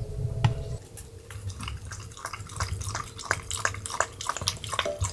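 A dog lapping water from a stainless steel bowl: quick wet laps, several a second, starting about a second in.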